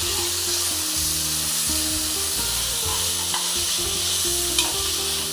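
Onions and ginger-garlic paste sizzling in hot oil in a pressure cooker, stirred with a metal slotted spatula, with a couple of light scrapes of the spatula on the pan. The paste is being sautéed until its raw smell goes.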